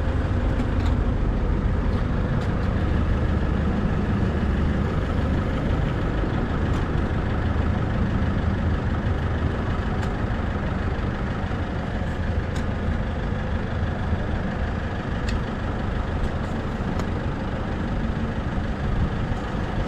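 Steady low motor hum while diesel is pumped from a fuel dispenser into a vehicle's tank, with a few faint clicks.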